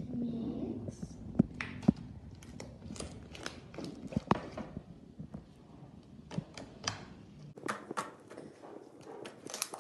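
Slime with clay mixed in being squeezed, folded and kneaded by hand, giving an irregular run of short sticky clicks and pops.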